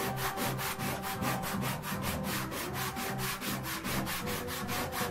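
Hand sanding a carved groove in a wooden panel with a small piece of sandpaper: quick, even back-and-forth rubbing strokes, about seven a second.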